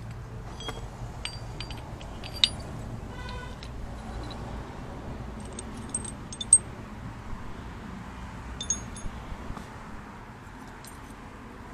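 Metal parts and tools clinking and clattering as they are handled, in scattered light knocks with ringing overtones. One short metallic ringing note sounds about three seconds in, and the loudest clinks come a couple of seconds in and just past the middle.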